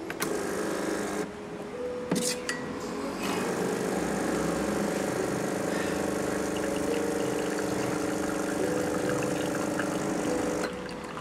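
Espresso machine's pump running steadily while a shot brews into a cup, coming on a second or so in after a click at the controls and stopping shortly before the end.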